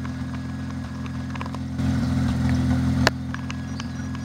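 1991 Mazda RX-7's rotary engine idling steadily through a cat-back stainless steel exhaust. It runs louder for about a second midway and then drops back abruptly with a sharp click about three seconds in.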